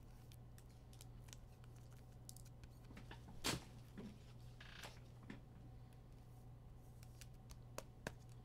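Faint handling of trading cards: scattered light clicks and rustles, one sharper click about three and a half seconds in, over a low steady hum.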